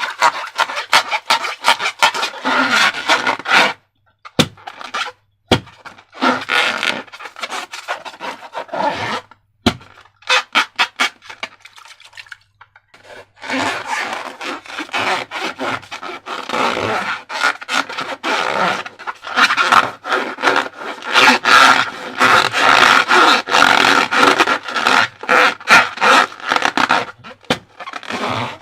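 Slime being squished, stretched and worked by hand: a dense run of rapid sticky clicks and crackles, broken by a few brief pauses.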